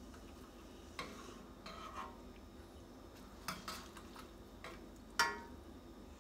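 A spoon stirring ramen noodles in a stainless steel saucepan, clinking against the pot a handful of times at irregular moments. The loudest clink comes about five seconds in and rings briefly.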